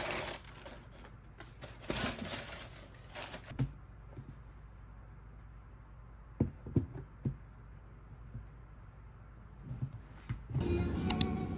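Rustling of tissue paper as a pair of Nike Dunk High sneakers is handled, then a few soft knocks as the shoes are set down on a shelf, and a scuff near the end as they are pushed into place.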